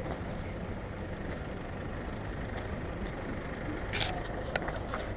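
Steady low outdoor background rumble, with a few faint short clicks about four seconds in.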